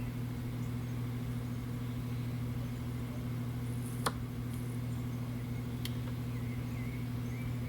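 Steady low electrical hum, with one sharp click about four seconds in and a fainter click near six seconds.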